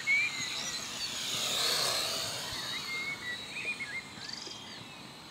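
Syma X5C quadcopter's small motors and propellers buzzing as it flies past, swelling to loudest about two seconds in and then fading away. Birds chirp at the start and again after the pass.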